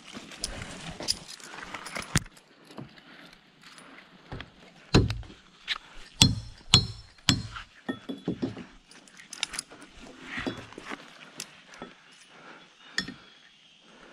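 Irregular knocks and clinks of hard objects striking, some with a light metallic ring, with a run of heavier thuds in the middle.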